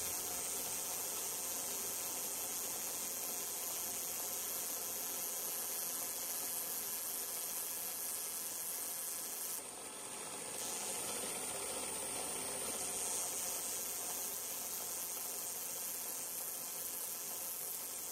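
Small belt-driven fly-cutter spindle running steadily with a hiss as it slowly cuts gear teeth in a brass disk on a watchmaker's lathe. The sound dips briefly about ten seconds in, then picks up again.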